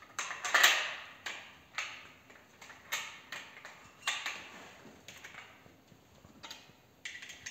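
Clicks and clacks of a Huglu Renova inertia-operated semi-automatic shotgun's parts being fitted back together during reassembly: a string of unevenly spaced sharp clicks, the loudest about half a second in.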